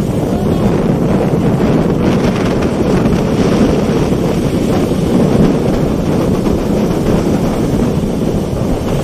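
Wind blowing across the microphone over surf breaking on the shore: a steady, heavy rumbling rush with no pauses.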